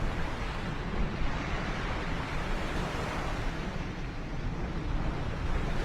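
Distant jet noise from a B-2 Spirit's four turbofan engines: a steady, tone-less rushing rumble heavy in the low end, swelling slightly midway and easing off about four seconds in, with wind buffeting the microphone.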